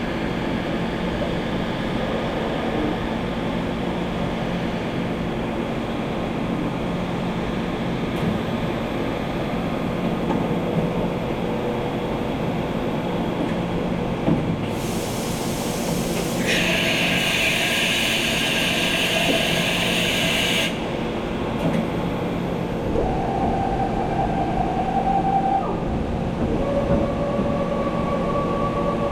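SNK Nissin BP130/3.5 CNC horizontal boring and milling machine running, a steady mechanical rumble with whining tones that step to new pitches several times. Midway a loud hiss comes in for about six seconds and then cuts off.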